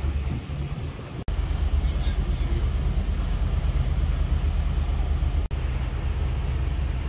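Steady low rumble aboard a trawler underway, broken by two brief dropouts.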